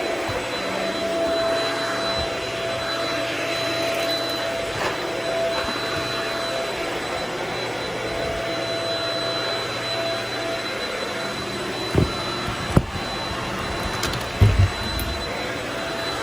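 Vacuum cleaner running steadily, a constant rushing hiss with a steady motor whine. Near the end there are a few short knocks.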